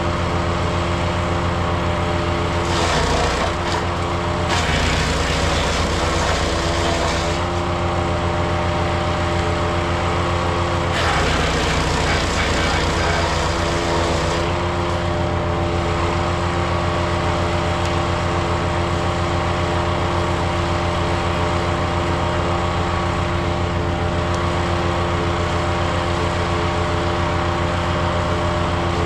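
Powerfist 420cc gas wood chipper running steadily under power. It gets louder and rougher three times, about three seconds in, from about five to seven seconds and from about eleven to fourteen seconds, as brush is fed through and chipped.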